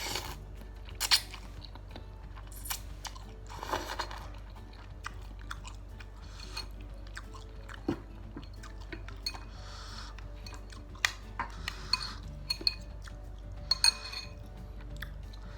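Close-miked eating of chicken noodles and meatballs: chewing and slurping in short spells, with sharp clicks of utensils against the bowl.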